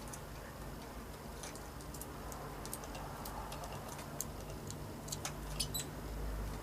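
Scattered faint high clicks and ticks, with one brief high bird chirp about five and a half seconds in, over a steady low hum.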